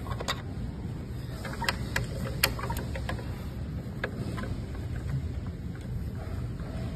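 A hand screwdriver clicking and scraping against screws in a treadmill's underside panel, a scatter of short sharp clicks, most in the first half, over a steady low background rumble.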